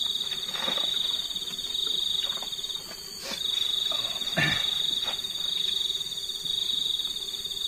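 Crickets chirping in a steady, high-pitched trill that breaks off briefly about three seconds in and then carries on. There are a few soft knocks, the loudest a little past the middle.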